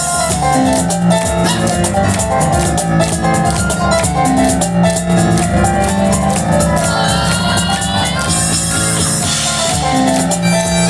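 Live instrumental music: piano and cajón playing a fast, driving rhythm together with bagpipes.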